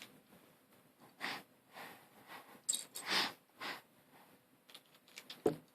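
V-Cube 7 7x7 plastic puzzle cube being turned layer by layer: a run of short, soft scraping turns, then a few small clicks near the end.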